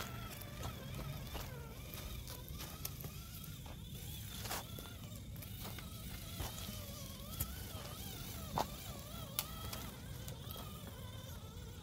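Small RC scale crawler's electric motor whining, its pitch rising and falling as the throttle changes, with a few sharp crackles of leaves and twigs under the tires.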